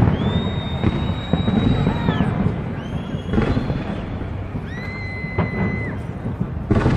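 Fireworks going off in a dense, continuous rumble of bangs and crackling, with sharper reports about a second in, at about three and a half seconds, and near the end.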